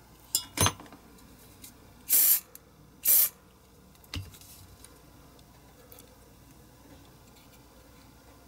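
Two short hissing bursts of air or spray, about a second apart, preceded by a couple of light clicks and followed by a soft knock.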